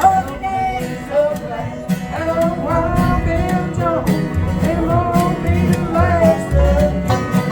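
Bluegrass-style country music: plucked acoustic strings with a singing voice over them.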